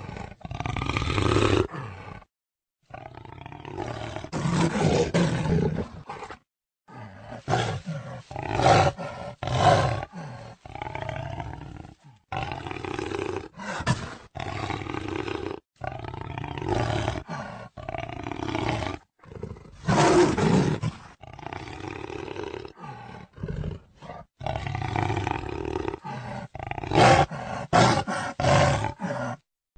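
Jaguar roaring: a long run of separate hoarse calls of varying length, broken by a few brief gaps of dead silence.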